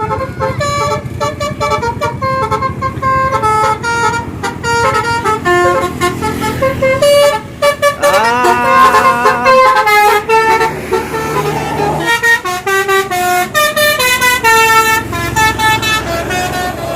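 Bus telolet horn, a multi-tone Basuri-type horn, playing a melody of stepped notes, with a rising glide about halfway through.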